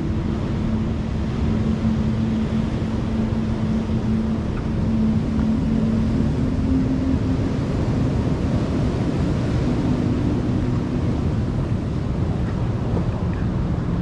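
Ocean surf washing over a rocky shore at low tide, a steady roar heaviest in the low end. A faint low hum holds underneath and shifts pitch a few times.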